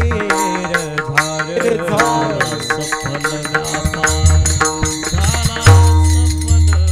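Marathi kirtan devotional music: a singing voice over steady held instrumental tones, with drumming and sharp percussion strokes keeping the rhythm.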